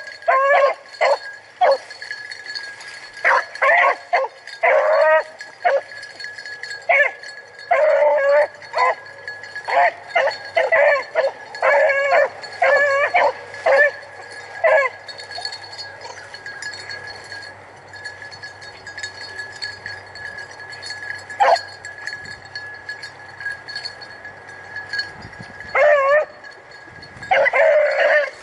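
Rabbit hounds baying in quick bursts as they run a swamp rabbit's trail. They go quiet for about ten seconds midway, then pick the trail up again near the end.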